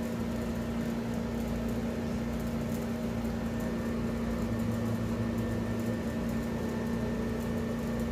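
Steady low hum with a background hiss, unchanging throughout.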